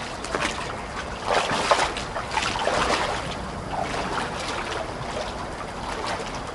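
Two people in waders wading through a shallow river, the water splashing and swishing around their legs at each step, over the steady rush of the current.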